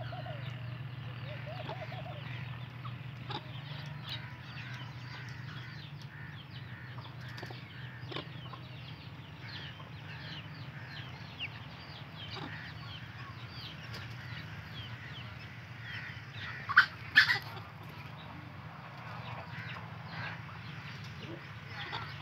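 Aseel hen with her chicks: many short, high chick peeps keep coming throughout, along with the hen's clucking. Two loud calls come close together about seventeen seconds in, over a steady low hum.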